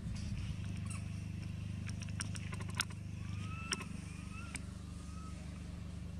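Steady low mechanical hum, with a few sharp clicks around the middle and several faint, short whistled calls that rise and fall soon after.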